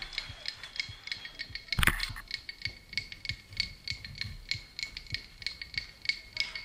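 Background music: a sparse beat of quick, even ticking clicks, about four to five a second, each with a high ringing tone, and one loud crash about two seconds in.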